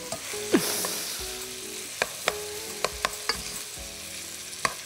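Cubed beef, onion and garlic sizzling as they fry in oil in a pot, stirred with a wooden spoon. The spoon clicks against the pot about half a dozen times, and the hiss is strongest in the first second.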